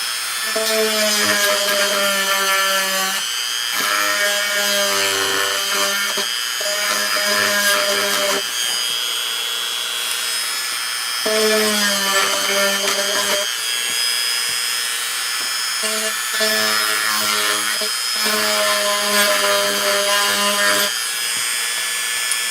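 A small electric motor runs in repeated bursts of two to three seconds, about six times, each a steady whine that sags slightly in pitch while it runs. A steady high-pitched hum sits underneath throughout.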